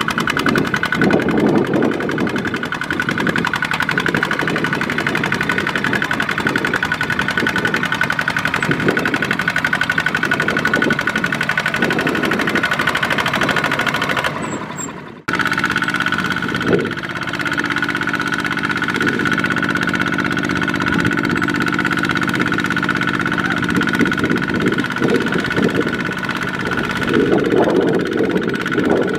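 Diesel farm-machinery engines running in a rice field, the engine note uneven and varying as if working under load. About halfway through the sound drops out briefly and comes back as a steadier, even engine drone.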